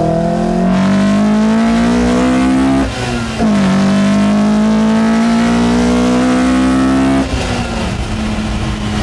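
Toyota Dual BEAMS (3S-GE dual VVT-i) four-cylinder breathing through individual throttle bodies, heard from inside the cab under hard acceleration. The engine note climbs steadily, breaks for a gear change about three seconds in, then climbs again. Just after seven seconds it drops back to a lower, steadier note.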